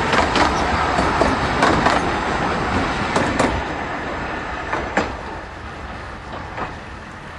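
Narrow-gauge train running away along the track, its coach wheels clicking over the rail joints, the sound fading steadily as it recedes.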